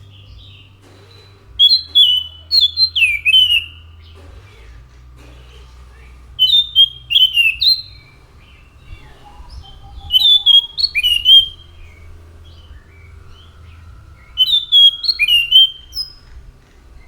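Anis macan thrush singing in full voice: four phrases of quick, varied whistled notes a few seconds apart, over a faint low hum.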